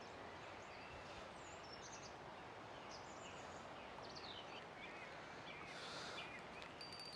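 Steady rush of a flowing river, with a few faint bird chirps over it.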